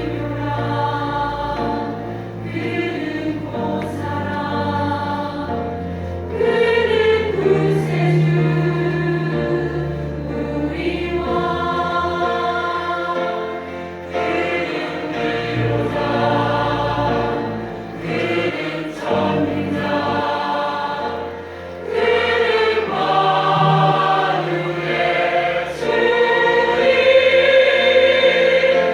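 Combined church choir singing a Christmas cantata in sustained chords, with a short dip in loudness a little past two-thirds of the way through and the fullest, loudest passage near the end.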